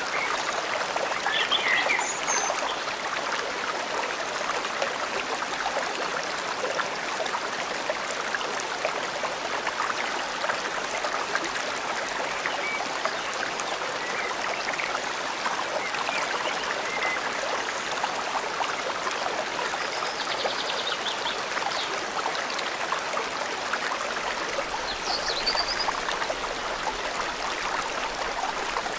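Forest stream flowing steadily, with a few brief bird chirps now and then.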